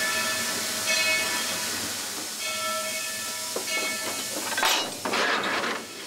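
Steam locomotive No. 300's bell ringing about once every second and a half over a steady hiss of steam, with a louder rush of hissing steam near the end.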